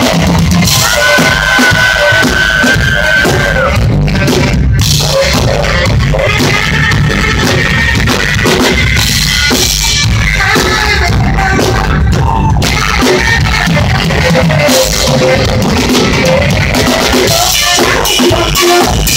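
Loud live rock band: a saxophone plays over a drum kit with bass drum and snare. One long held note comes in about a second in.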